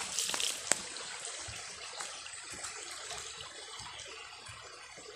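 Water trickling steadily, louder in the first second with a sharp knock, then fainter and even.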